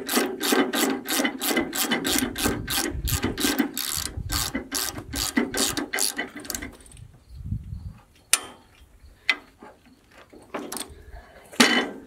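Hand crank of a Wood-Mizer LX25 sawmill's head lift clicking like a ratchet, about four clicks a second, as the head is wound up on its freshly tightened friction brake. The steady clicking stops about six and a half seconds in, and a few single clicks follow.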